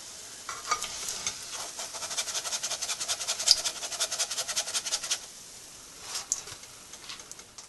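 A stuffed bread roll deep-frying in hot oil, with a dense fast crackle of sizzling. The crackling dies away about five seconds in, once the roll is lifted out of the oil.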